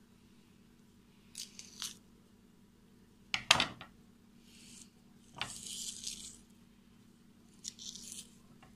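A kitchen knife cutting slices of sucuk (Turkish sausage) on a wooden cutting board: five short scraping cuts through the casing, the loudest about three and a half seconds in ending in a knock of the blade on the board.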